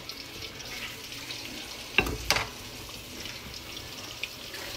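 Oil sizzling and crackling steadily in a pan as breaded coconut shrimp fry, with two sharp knocks of a utensil or dish about two seconds in.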